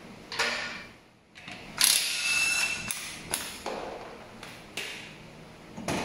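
Hydraulic floor jack being pumped by its long handle to lift the front of an ATV: a series of separate mechanical clunks and clicks, unevenly spaced, with one longer rasping stroke about two seconds in.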